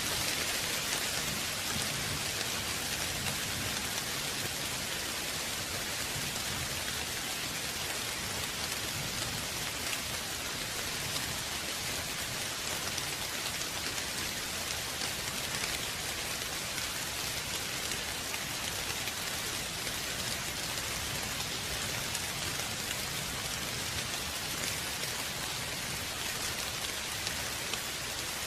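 Steady rain falling, an even hiss of drops on a surface with no thunder.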